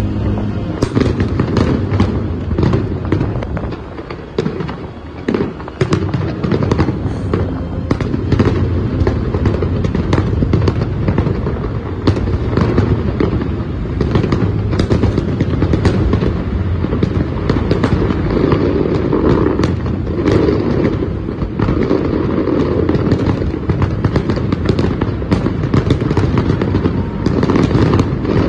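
Fireworks display: a dense, continuous run of shell bursts, with many sharp cracks over a steady low rumble.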